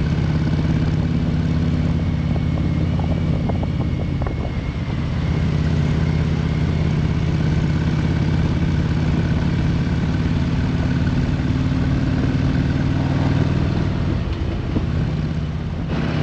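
2020 Harley-Davidson Road Glide Limited's Milwaukee-Eight 114 V-twin running at a steady cruise while riding. The note eases briefly about four seconds in and again near the end.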